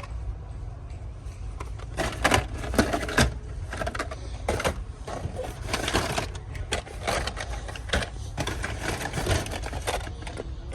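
Hands rummaging through a bin of loose toys: irregular plastic clicks and clatters, with a few sharper knocks about two to three seconds in, over a steady low hum.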